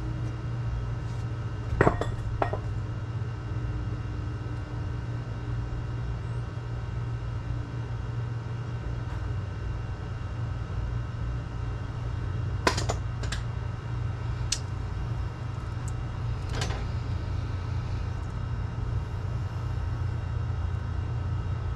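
A few sharp metallic clinks, like tools or metal parts being handled and set down, about half a dozen scattered through, over a steady low mechanical hum.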